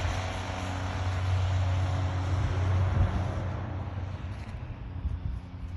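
A vehicle running steadily, with a low engine hum and a hiss that eases off after about three and a half seconds.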